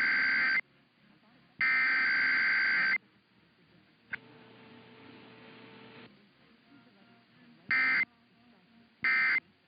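Emergency Alert System SAME data bursts: two harsh, buzzy data-tone bursts of a little over a second each, the end of a three-burst alert header. A few seconds of faint hiss and hum follow, then two short end-of-message bursts near the end.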